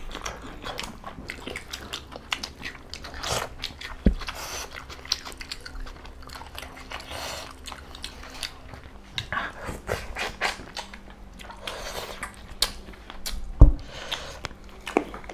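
Close-up eating sounds: chewing, lip smacks and bites as meat curry and rice are eaten by hand. Two dull knocks stand out, one about four seconds in and a louder one near the end.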